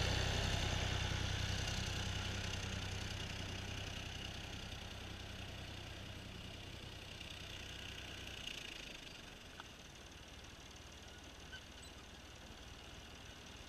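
Tractor engine running close by, then fading steadily as the tractor drives away; its low hum drops off about eight and a half seconds in.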